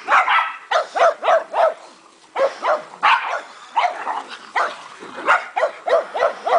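Several dogs barking in quick runs of short barks during play, with a brief lull about two seconds in.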